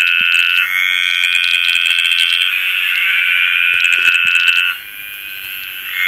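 Tree frogs calling in a dense, steady, high-pitched chorus. It drops off suddenly near the end for about a second, then starts up again.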